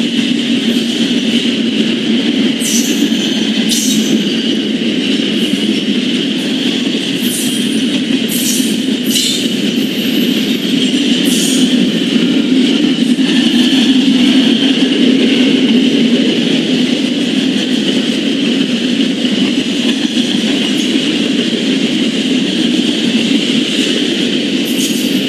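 A CSX intermodal train's double-stack container cars rolling steadily past, a continuous rumble of wheels on rail with a few brief sharp high-pitched squeaks or clanks scattered through.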